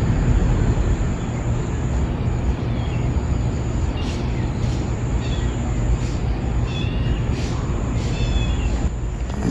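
Trapped kitten mewing from inside a street drain: a string of short, faint high cries about every second, its distress calls. Under them runs a steady low rumble.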